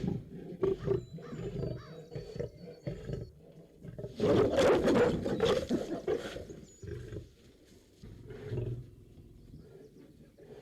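A lion roaring: a run of short grunts, then one loud, long roar about four seconds in that lasts some two seconds, followed by quieter grunts.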